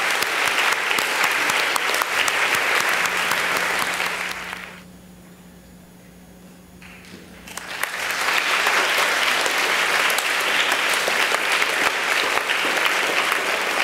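Audience of schoolchildren applauding. The clapping fades out about five seconds in and picks up again at full strength about two and a half seconds later.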